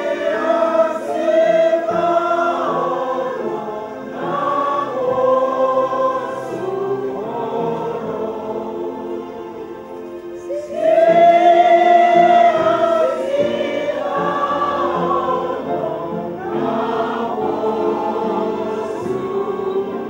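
A group of men and women singing a hymn together in slow, held phrases. A new, louder phrase begins about eleven seconds in.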